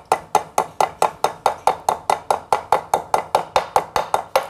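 Hammer tapping a 6202 ball bearing into an e-rickshaw front wheel hub: light, quick, even blows, about five a second, each ringing briefly.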